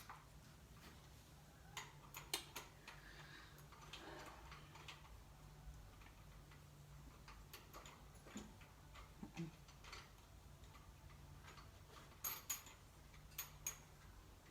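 Near silence with a faint low hum and a few scattered, sharp metallic clicks, in pairs about two seconds in and again near the end, from hand tools and bolts being worked while an EGR valve is fastened in place.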